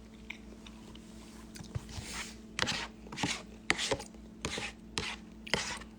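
A person chewing mouthfuls of instant ramen close to a phone microphone: a run of about seven short chewing sounds, starting about two seconds in.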